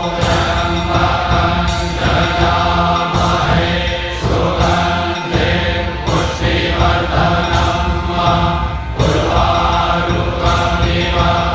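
Background music of a chanted mantra: voices singing in a chant over a steady low drone.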